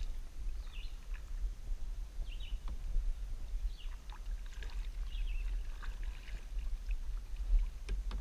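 Kayak drifting on a pond: a steady low rumble, with scattered faint knocks and small water sounds from the hull and gear.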